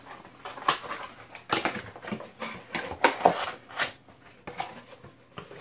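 Cardboard box being turned inside out and refolded by hand: irregular scraping and rustling of the cardboard flaps, with several sharper scuffs spread through.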